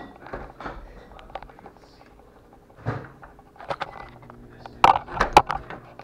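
Fiberglass exterior door being handled: a string of clicks and knocks from its latch and lock hardware, with a dull thump about three seconds in and the sharpest clicks about five seconds in.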